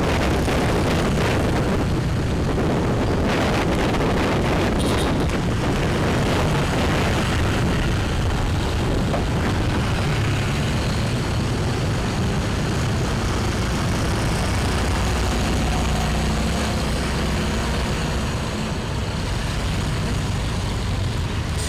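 Steady road noise from riding a motorbike through city traffic: wind rushing on the microphone over the engine's hum and the sound of other motorbikes and vehicles nearby.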